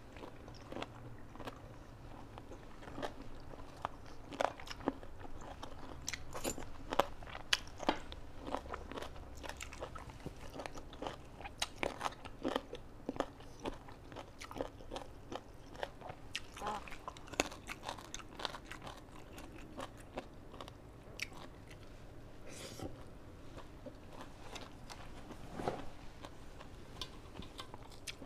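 Close-miked chewing of a mouthful of spicy Thai salad with crisp raw vegetables, with a steady run of short, sharp crunches.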